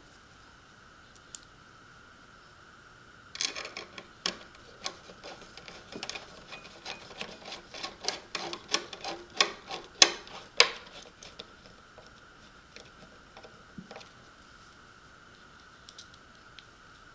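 A run of irregular sharp clicks and taps of small hard parts being handled, starting a few seconds in and lasting about seven seconds, loudest near the end of the run, then a few scattered ticks, over a steady faint high hum.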